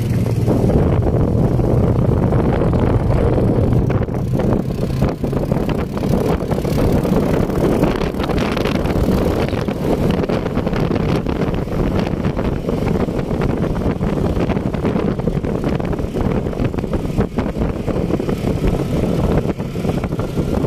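Quad bike (ATV) engine running on sand, with wind buffeting the microphone. A steady low engine hum is clearest for the first few seconds and is then mostly covered by wind rumble.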